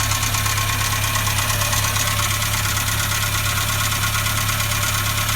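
Renault Logan engine idling with a steady, regular knock. Adjusting the valves did not cure it, and the owner thinks it is most likely a slight piston knock.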